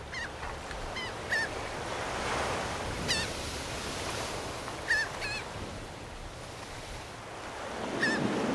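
Steady wash of ocean surf, with short squawking bird calls scattered across it, about seven in all.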